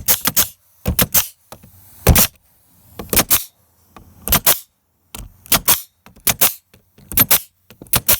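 Nail gun firing repeatedly, about once a second, each shot a sharp double crack.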